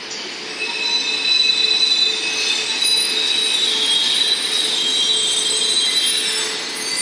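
E4 series double-decker Shinkansen moving slowly along the platform, with several high, steady squealing tones over the rolling noise. The sound grows louder about a second in.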